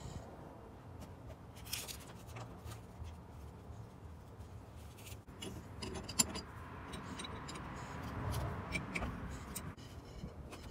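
Open-end wrenches clinking and scraping on a brass air hose fitting as it is tightened, a scatter of light metallic clicks over a low steady rumble.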